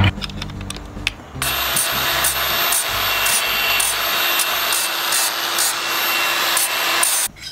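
Cordless angle grinder with a flap disc grinding the freshly cut end of steel square tubing smooth. It is a steady abrasive hiss with a faint high whine, starting about a second and a half in and cutting off abruptly near the end.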